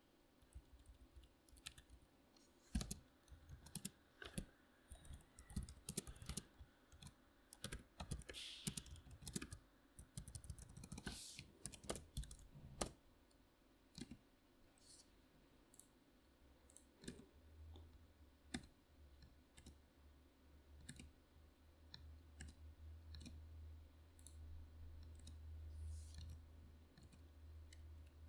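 Typing on a membrane computer keyboard: irregular key clicks, coming in quick runs through the first half and more sparsely after. A low steady hum comes in a little past the middle and continues.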